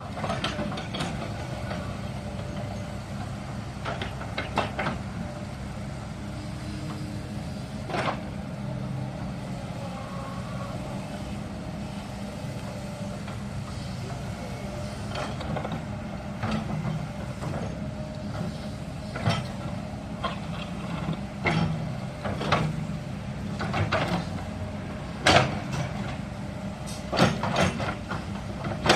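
Excavator engine running steadily under load, with scattered sharp knocks and clanks, more frequent in the second half.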